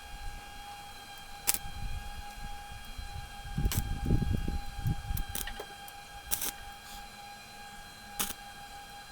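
Stick tack-welding of thin stainless-steel sheet with stainless electrodes: about five short, sharp cracks spaced a second or two apart, over a steady high-pitched whine, with a low rumble in the middle.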